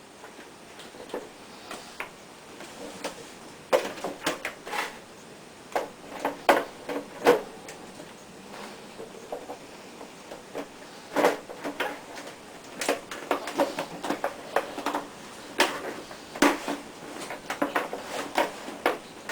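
Irregular light knocks and clatter of kitchen equipment being handled during boilie making. They come in short clusters, starting about four seconds in.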